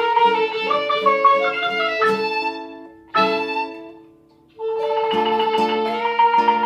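Instrumental music of held, pitched notes. It breaks off about two seconds in, starts again, fades almost to silence around four seconds, then comes back.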